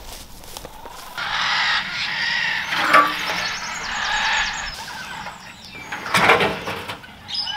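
Birds calling for a few seconds, then a brief scraping noise as a rusted corrugated metal sheet is lifted off the grass.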